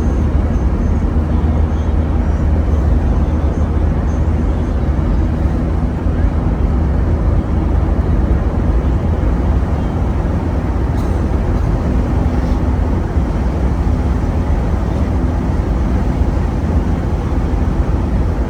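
Steady low rumble of a car on the move: engine and road noise, with two faint ticks about eleven and twelve seconds in.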